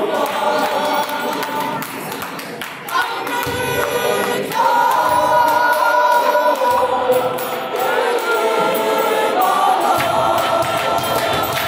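Gospel choir singing, several voices together, with two women's voices close to the microphone.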